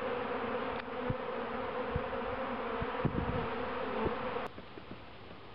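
Honeybee swarm buzzing steadily, the dense hum of many bees' wings, with a few soft low thumps. The buzz drops away sharply about four and a half seconds in.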